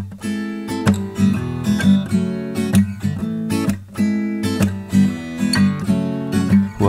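Soundtrack music: acoustic guitar strumming in a steady rhythm.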